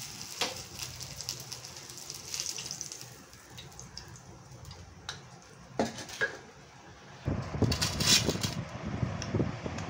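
Fish frying in hot oil on a cast-iron tawa, a crackling sizzle, with a couple of sharp clicks of steel tongs against the pan as pieces are lifted out. After about seven seconds the sizzle gives way to a louder rumbling background with a brief rustling clatter.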